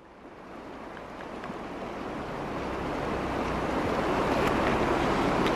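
Shallow mountain river rushing over stones: a steady wash of water noise that fades in from near silence and grows steadily louder.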